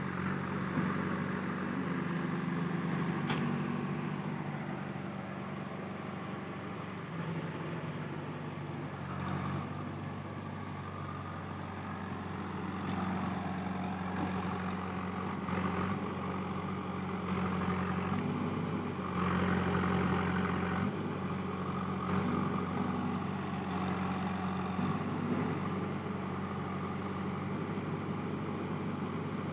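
Diesel engine of a JCB backhoe loader running steadily, its pitch shifting slightly, and briefly louder about two-thirds of the way in.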